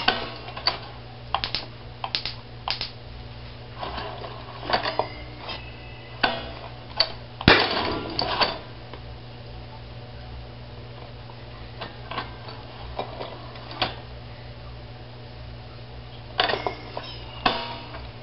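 Irregular metallic clicks and clinks from a homemade propane-oxygen engine's push rods, valve linkage and switch as its wheel is worked by hand. One sharper, louder crack comes about seven and a half seconds in.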